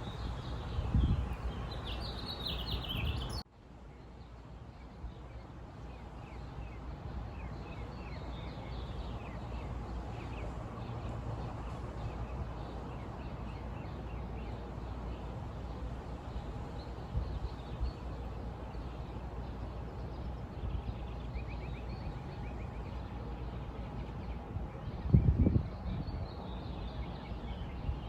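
Outdoor ambience: birds chirping now and then over a steady low rumble. The sound cuts abruptly about three seconds in, and there is a brief low thump near the end.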